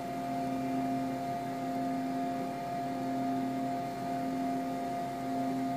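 Steady hum and whir of a running VAXstation 3200 computer, its fans and power supply, with a few constant tones over an even rushing noise.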